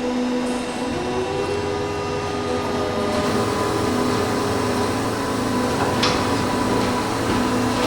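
Injection molding machine running with a steady machine hum of several held tones. One tone shifts up in pitch about a second in, and there is a single click about six seconds in.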